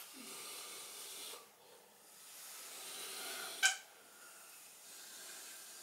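Caulking gun being worked while running a bead of silicone sealant: two stretches of soft hissing, then one sharp click about three and a half seconds in.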